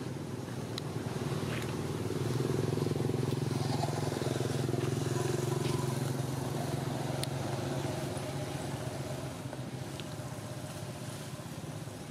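A motor engine running steadily. It swells louder a couple of seconds in and slowly fades toward the end, with a few faint clicks on top.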